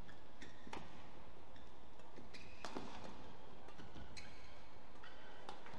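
Badminton doubles rally: sharp racket-on-shuttlecock hits about once a second, with short high squeaks of court shoes between them.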